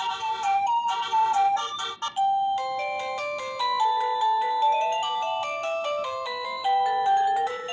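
Wireless doorbell receiver playing its built-in electronic chime melodies as they are stepped through with the melody button. One quick tune stops about two seconds in, and a new tune with longer notes begins.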